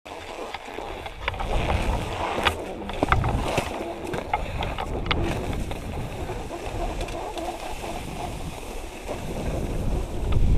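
Wind buffeting an action camera's microphone, with several sharp clicks and knocks from the camera and gear being handled in the first five seconds or so.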